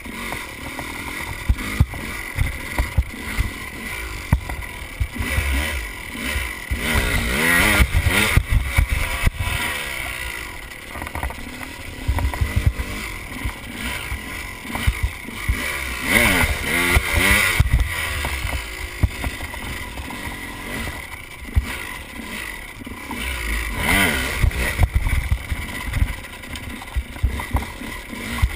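KTM enduro dirt bike engine under way, revving up and easing off as the bike is ridden over rough dirt, climbing hard in pitch three times. Wind buffets the microphone underneath.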